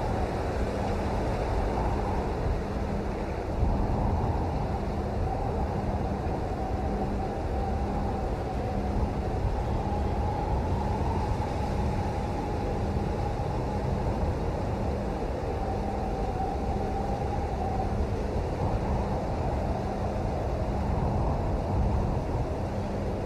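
Steady rain noise, heaviest in the low range, with a faint wavering whine and a faint low hum that pulses on and off regularly.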